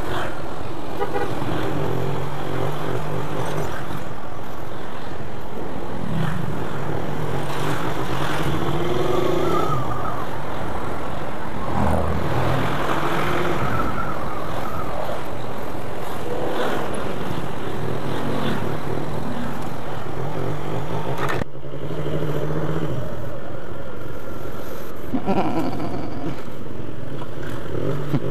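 Motorcycle engine running while riding in traffic, its pitch rising and falling with the throttle, over steady wind and road noise.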